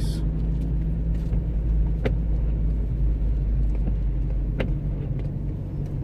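A car driving on a snow-covered road, heard from inside the cabin: a steady low rumble of engine and snow tyres, with a couple of faint clicks.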